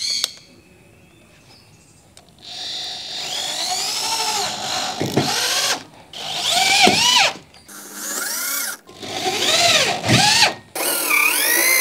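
Corded electric drill driving screws through a plywood deck into a metal frame. About two and a half seconds in, the motor starts a series of whining runs, each rising and falling in pitch as it speeds up and slows while a screw goes in.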